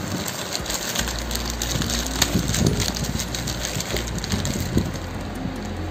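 Compostable plastic bag crinkling and rustling as it is pulled open and folded back by hand, a dense run of small crackles. A steady low hum sits underneath from about a second in.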